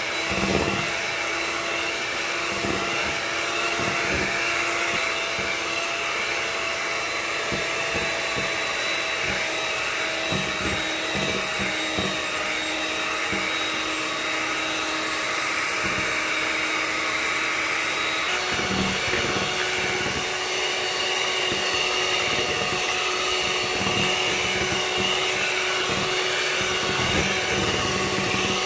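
Electric hand mixer (Hanabishi) running steadily as its beaters whisk cream cheese batter while eggs are added. Its motor pitch steps up about two-thirds of the way through, and there are scattered low knocks.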